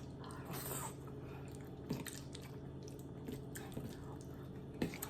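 A person chewing food, with a few soft mouth clicks, about two seconds in and again near the end.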